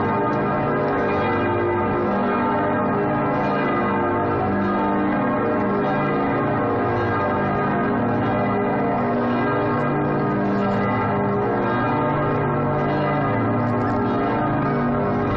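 The Kreuzkirche church bells ringing together in a full peal, many overlapping bell tones sounding steadily without a pause.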